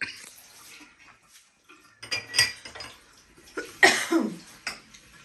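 Dishes and cutlery clattering as they are handled in a kitchen sink, in scattered knocks. The loudest comes about four seconds in, with a short scrape that falls in pitch.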